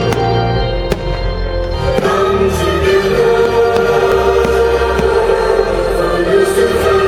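Loud choral music with held chords, and a few sharp bangs of fireworks over it, the clearest about a second in.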